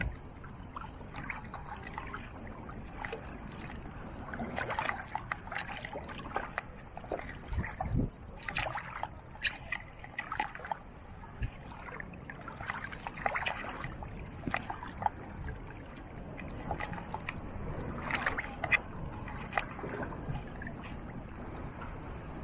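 Shallow water sloshing and splashing irregularly as an underwater metal detector's coil and shaft are swept back and forth through it.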